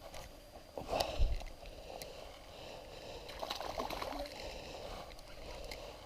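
Water splashing and sloshing at a small boat's side, with a few sharp knocks and clicks about a second in, as a perch is brought in on a spinning rod.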